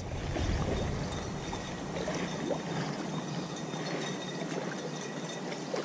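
Steady rush of moving water, even and unbroken, with a deep rumble in the first second that fades away.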